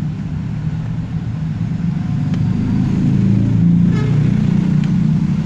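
A steady, low motor rumble, like an engine running, that holds throughout and swells slightly in the middle.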